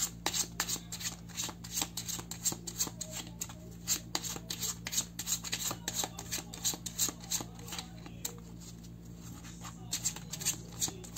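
A deck of oracle cards being shuffled by hand: a run of soft, irregular card clicks and slaps, a few a second, thinning for a moment about eight seconds in. The new cards catch a little as they are shuffled.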